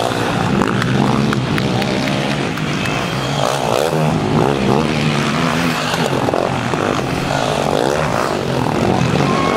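Several racing quad bikes (ATVs) running hard past on a dirt track, their engines overlapping, the pitch climbing and dropping again and again as the riders open and shut the throttle.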